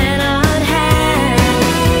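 A pop song with a singing voice over a steady drum beat, about two beats a second.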